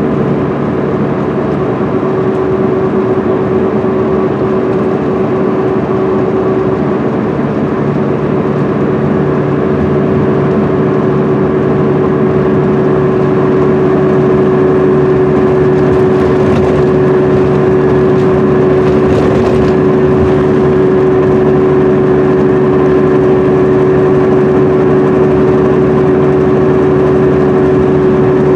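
Cummins ISM diesel engine of a 2010 MCI D4500CL highway coach running steadily at cruise, heard from inside the bus: a steady drone with a held whine over road noise, growing slightly louder about halfway through.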